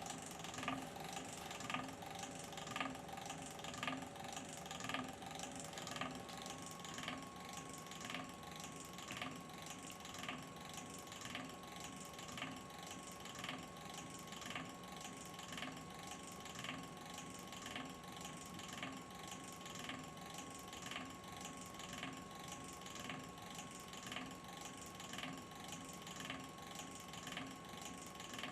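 A small mechanism clicking at an even rhythm of about two clicks a second, over a faint steady hum whose pitch steps up about six seconds in.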